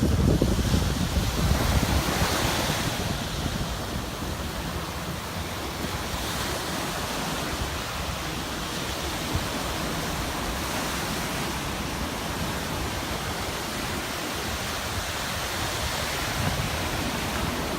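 Steady rushing noise outdoors, with low buffeting at the start that fades within the first second or so.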